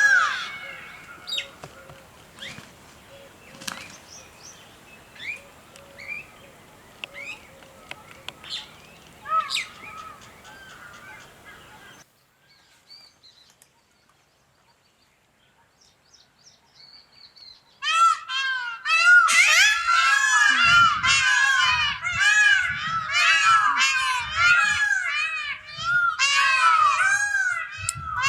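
Small birds chirping faintly with scattered short calls. After a few seconds of near silence, a flock of birds bursts into loud, rapid, overlapping calls about eighteen seconds in.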